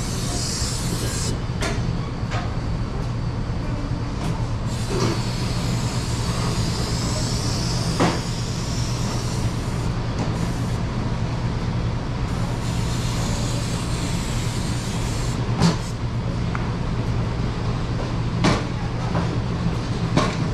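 Steady hum of kitchen machinery, with a few sharp knocks and clatters now and then.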